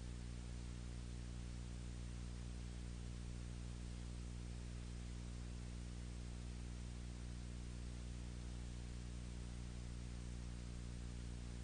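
Steady electrical hum with a stack of even overtones under a constant hiss, unchanging throughout. This is the background noise on the soundtrack of a silent film.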